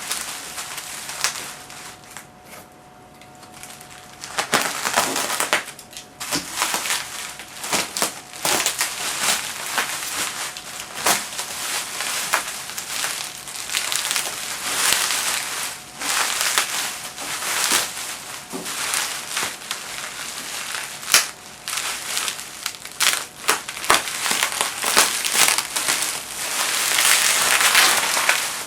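Packing material crinkling and rustling as it is handled, in irregular crackles that get busier from about four seconds in.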